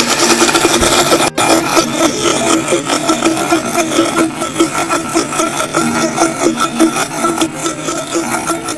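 Electric blender motor running steadily, its blades churning basil, nuts and olive oil into pesto, with a rough grinding rasp over the motor hum. It cuts out for an instant about a second in, and after that the grinding gets rougher and a little quieter.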